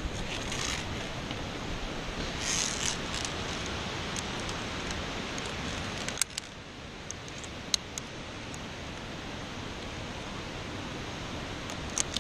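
Steady hiss of wind on the microphone that drops a little about six seconds in, with rustling from the climber's movements early on and a few sharp metallic clicks of a carabiner on the via ferrata's steel cable, once about six seconds in, again near eight seconds and twice near the end.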